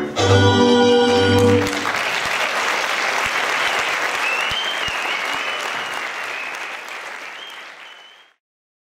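Last notes of a folk string band, fiddles over bass, ending about two seconds in, followed by audience applause that slowly fades and cuts off near the end. A thin, wavering high whistle sounds over the applause in its second half.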